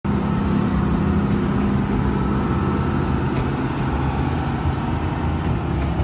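Small ride-train locomotive idling while it stands at the platform: a steady low rumble with a constant hum.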